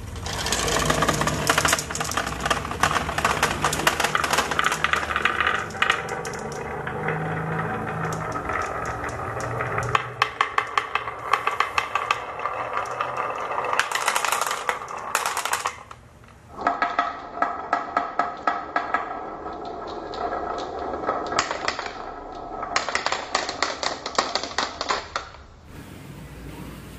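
Marbles rolling and clacking down a wooden HABA marble run, a steady rumble of rolling under many quick clicks and rattles. It breaks off briefly after about 16 seconds and carries on again.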